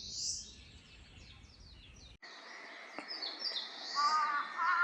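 Eastern crowned warbler singing: a quick run of high, descending notes ending in a louder buzzy phrase, heard twice. Near the end a different bird's lower, arched calls begin.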